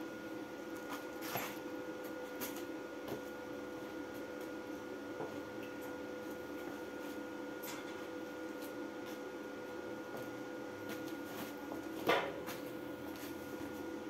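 Smarter MIG 250 welding machine switched on and idling, a steady hum with two held tones. A few light knocks come in the first seconds and a louder sharp clunk about twelve seconds in.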